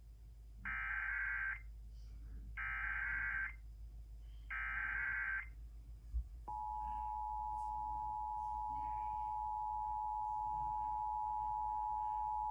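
Emergency Alert System activation on radio broadcast audio: three short bursts of SAME digital header data, each about a second long, then a steady two-tone attention signal that starts about halfway through and holds. It signals a severe thunderstorm warning.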